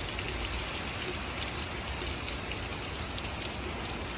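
Heavy rain pouring down steadily in a hurricane squall, an even rushing hiss dotted with drop splatters.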